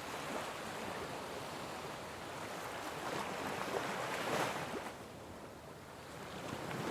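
Ocean waves washing onto a shore: a steady surf hiss that swells to a peak a little past halfway, eases off, then builds again near the end.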